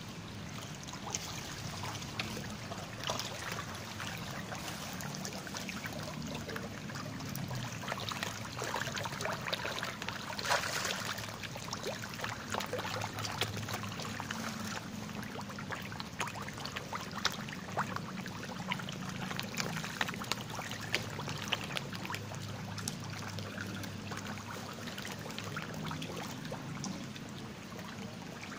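Many fish thrashing and slurping at the pond surface while they feed: a continuous crackle of small splashes, busiest about ten seconds in, over a low steady hum.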